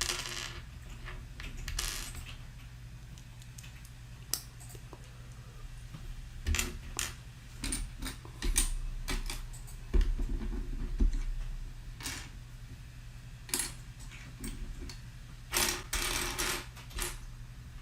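Small plastic building-toy pieces clicking and clattering in scattered bursts as they are rummaged through and sorted by hand.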